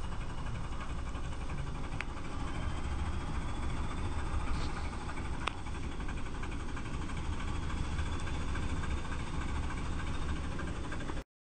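Flash flood water advancing over a dry wadi bed, a steady low rushing rumble that cuts off suddenly near the end.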